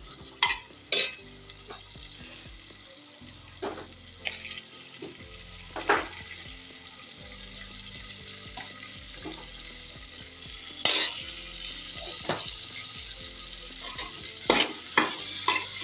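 Cauliflower florets frying in oil in an aluminium pressure-cooker pot, sizzling steadily, while a metal ladle stirs them and knocks against the pot now and then; the loudest knock comes about eleven seconds in.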